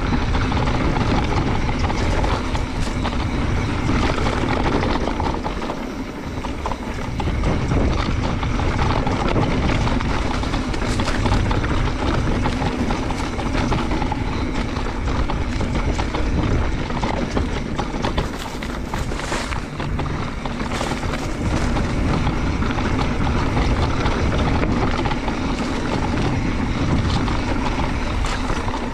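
Mountain bike ride noise: wind buffeting the camera microphone with a steady low rumble, and the tyres and frame rattling over rough dirt trail. A few sharper knocks and clatters come around ten and twenty seconds in.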